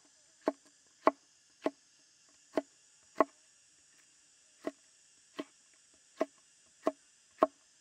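Cleaver slicing a red bell pepper into strips on a wooden cutting board: about ten sharp knocks of the blade on the board, one every half second or so, with a short pause in the middle.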